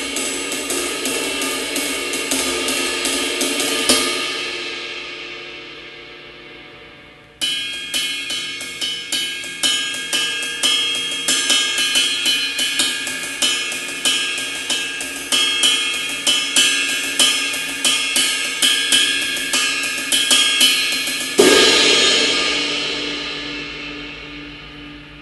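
Istanbul Mehmet Legend Dark 21-inch ride cymbal played in a rhythmic batucada-style groove. Twice the pattern ends on a hard accent that is left to ring and fade, once about 4 seconds in and once near the end.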